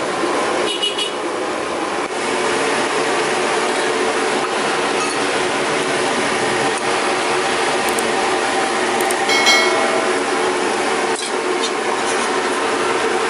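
Steady rushing din of a gas burner under a large pot of boiling noodle water, with a few sharp clinks of bowls and utensils.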